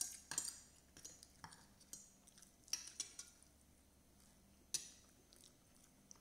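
Spoon and fork clinking and scraping on a plate while eating: about five sharp clinks spread out, with quiet stretches between.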